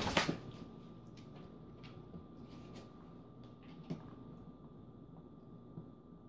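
Quiet room with a short rustle right at the start, then a few faint ticks from a dog's claws on a tile floor as it steps around its food bowl.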